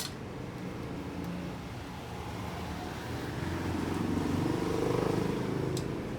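Low rumble of a passing motor vehicle, swelling about three seconds in and fading near the end, with a couple of faint clicks.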